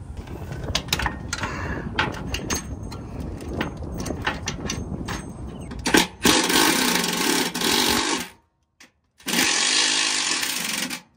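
A hand ratchet turns a thread-cutting bolt into the steel truck frame, with repeated clicks and a rough grinding as the bolt cuts its threads. A Milwaukee cordless power tool then runs twice for about two seconds, driving in the mounting bolts of an ARB twin air compressor.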